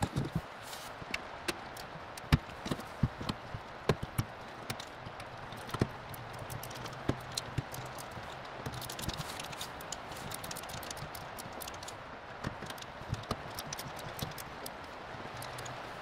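Irregular clicks and knocks of a gas furnace's sheet-metal access panel being handled and fitted onto the cabinet, with a faint low hum coming and going.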